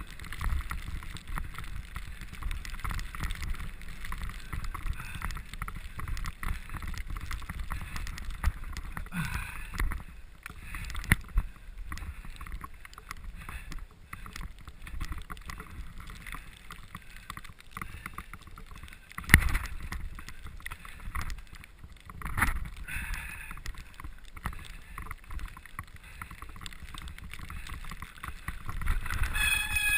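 Bicycle ridden fast over a snowy forest singletrack: continuous tyre and frame rattle full of small clicks, with a few sharp knocks from hard bumps, the loudest a little past the middle. A brief high squeal sounds near the end.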